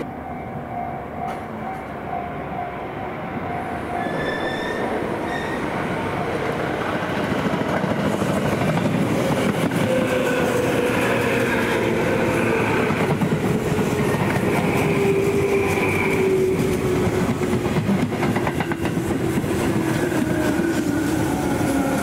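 Tobu Tojo Line electric train running past, its rumble of wheels on rails growing louder over the first several seconds. A thin whine over it slowly falls in pitch.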